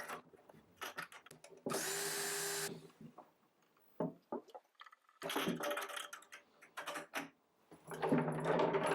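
Power drill running in short bursts, one steady run of about a second followed later by a longer one near the end, driving screws into plywood, with knocks and handling noise between the runs.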